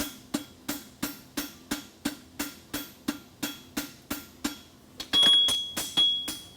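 Forging hammer striking an aluminum bar shoe on the anvil while pulling a quarter clip: steady, even blows about three a second. About five seconds in come a few louder strikes with a high metallic ring.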